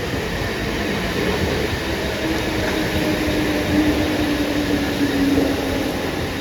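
Mumbai suburban electric local train running through the station over a steady hiss of heavy rain. About two seconds in, a motor whine rises out of the noise, sinks slightly in pitch and fades near the end.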